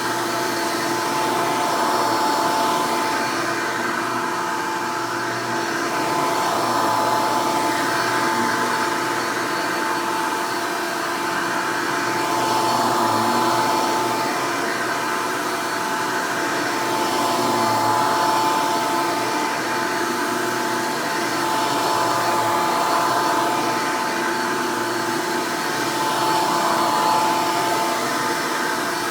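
Hoover Elite upright vacuum cleaner running steadily with a high, steady motor tone, its loudness swelling and easing every few seconds.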